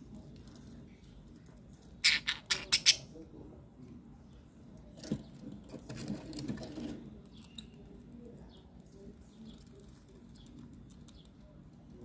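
Caged budgerigars: a quick run of about five sharp, harsh chirps about two seconds in, then rustling movement about five to seven seconds in, with faint soft twittering later.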